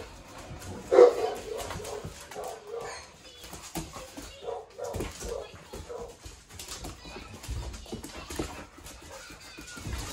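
Puppies play-fighting, with repeated short yips and whines, the loudest yelp about a second in, and their claws scrabbling on a hard floor.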